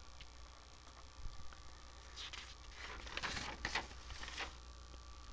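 Quiet room tone with a steady low hum, broken by a few faint short rustles and clicks in the middle seconds.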